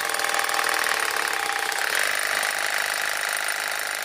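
DeWalt DCH033 18V brushless SDS-Plus hammer drill running with its hammer action on and a masonry bit fitted, free-running in the air without touching a wall. A steady motor note carries the fast, even chatter of the hammer mechanism.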